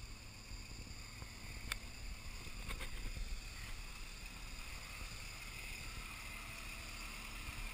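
Low, steady engine rumble of a lifted off-road SUV crawling slowly over a rutted dirt trail, with a couple of faint clicks about two and three seconds in.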